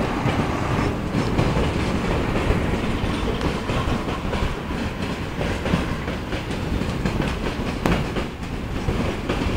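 Freight train wagons rolling past close below, with steel wheels clattering over the rail joints in a continuous clickety-clack. A sharper single knock comes about eight seconds in.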